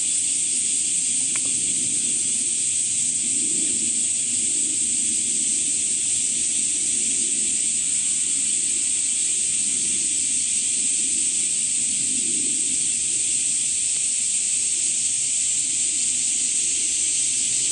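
Steady, dense high-pitched hiss of an outdoor insect chorus, unchanging throughout, over a faint low rumble.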